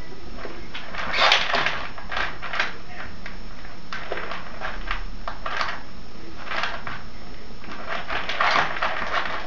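Fancy rats scrabbling and scuffling on a surface: irregular bursts of scratchy rustling, busiest about a second in, again around the middle, and near the end.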